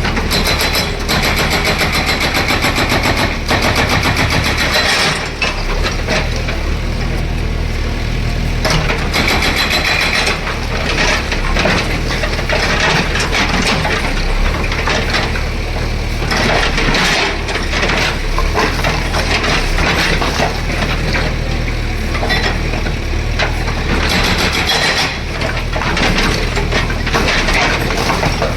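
Heavy diesel demolition machine running steadily, with a dense clatter of knocks and cracks as a house's structure is broken apart.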